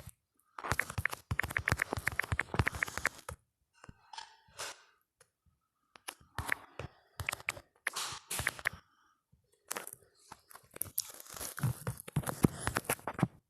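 Smartphone on-screen keyboard click sounds in quick runs of taps, three bursts of typing with short pauses between them.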